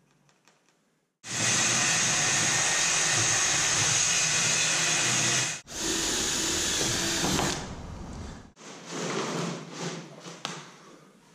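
Cordless drill boring holes through thin plywood, running loud and steady in two long runs with a brief stop between, then a quieter, uneven stretch of clicks and knocks.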